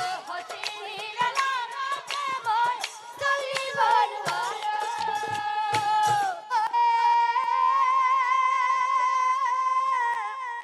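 A woman singing an Assamese nagara naam devotional song, with ornamented, bending phrases over drum strikes. About halfway through she holds one long note.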